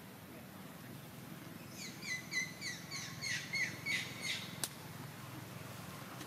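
A bird calling a quick run of about ten short, repeated chirps, roughly four a second, followed by a single sharp click.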